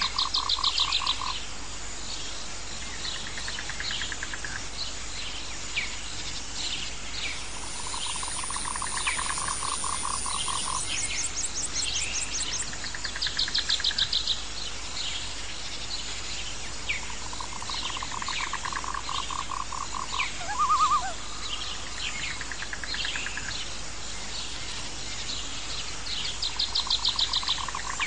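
Nature ambience of frogs calling, with insect and bird chirps. A low pulsed call of about two to three seconds recurs roughly every nine seconds, with shorter, higher trills in between.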